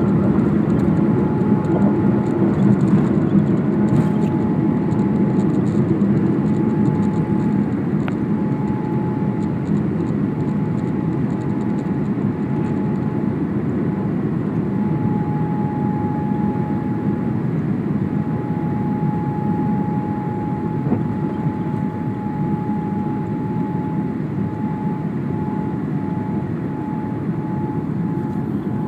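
Boeing 787 cabin noise at takeoff and initial climb: the jet engines at takeoff thrust and rushing air, heard from a window seat over the wing, with a steady high hum running through it. The noise eases slowly as the airliner climbs.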